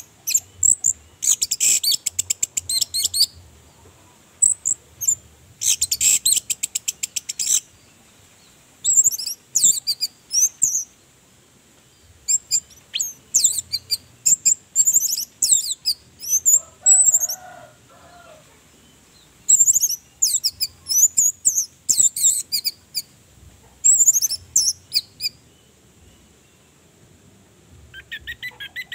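Orange-headed thrush singing in bursts of one to two seconds with short pauses between: rapid buzzy trills about a second in and again about six seconds in, then quick, varied high whistled phrases.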